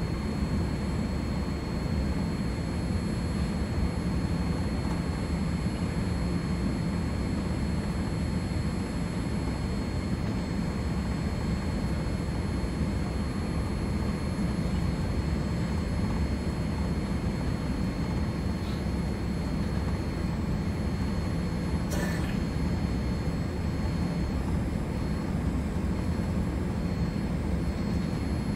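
Steady low rumble of a Boeing 787's engines and airflow heard inside the cabin during the descent, with a faint steady high whine over it. One brief click about three-quarters of the way through.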